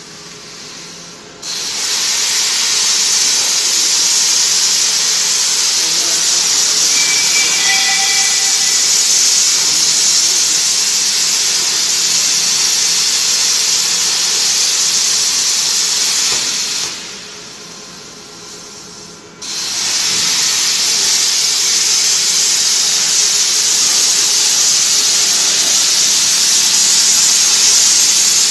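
Plasma arc torch of a CNC beam-coping machine cutting a steel H-beam: a loud, steady hiss that starts suddenly about a second and a half in, cuts out for about two seconds midway, then starts again.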